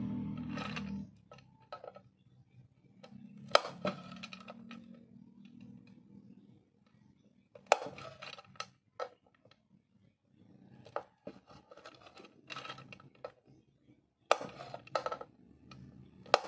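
Scattered sharp clicks and knocks of thin, hard wax candle sticks being handled on a board and cut with a curved metal blade, coming in small clusters. Background music fades out about a second in.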